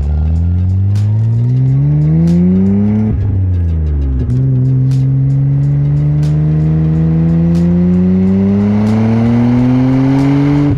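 Nissan Skyline R34 GT-R's twin-turbo RB26 straight-six heard at the tailpipe through a new full-titanium exhaust, accelerating: revs climb quickly for about three seconds, the pitch drops at a gear change, then climbs slowly and steadily through the next gear, dropping again at another shift at the very end.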